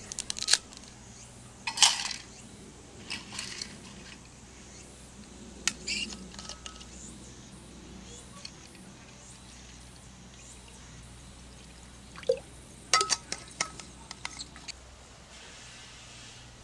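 Scattered metal clinks and taps of camp cookware and food cans being handled, a few ringing briefly. They come in groups, with a quiet stretch in the middle and a busier run of clinks near the end.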